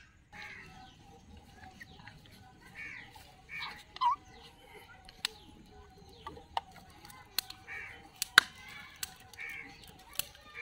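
A small twig fire crackling, with sharp snaps every second or so; the loudest comes about two-thirds of the way in. Birds call repeatedly in the background.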